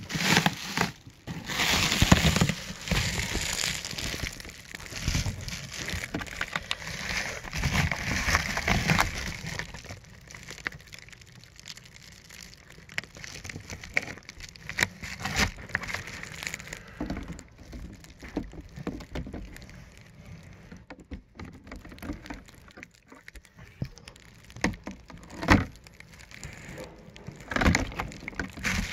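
Crinkling and rustling of a foil bubble-wrap cooler liner and a plastic ice pack being handled, with scattered clicks and knocks. It is busiest for the first several seconds, then turns sparser, with a couple of sharper knocks near the end.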